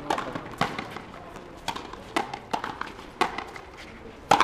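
Frontenis rally: the rubber ball cracks sharply off the players' rackets, the front wall and the court floor, in about seven irregularly spaced hits, with a louder one near the end.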